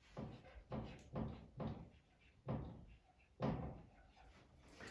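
Marker pen writing on a whiteboard: a string of short, faint strokes with brief gaps between them, as a word is written out.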